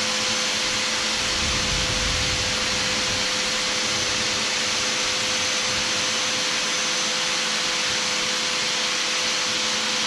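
A steady rushing machine noise, like a fan or blower running, with a constant faint hum; it does not change at all over the whole stretch.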